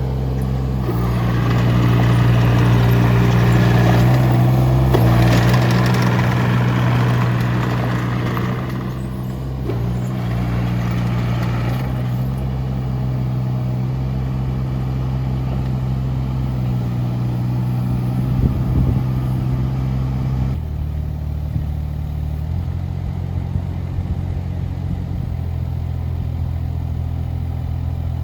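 Kubota U-17-3α mini excavator's diesel engine running steadily, with an added rush of higher noise for roughly the first nine seconds as the machine works. About twenty seconds in, the engine note drops to a lower speed.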